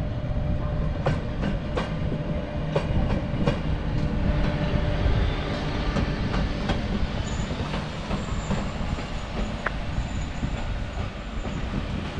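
A lone electric locomotive rolling past along the station track. Its running gear gives a low rumble with a steady hum, and its wheels click over the rail joints several times in the first few seconds. The sound eases off a little toward the end as it pulls away.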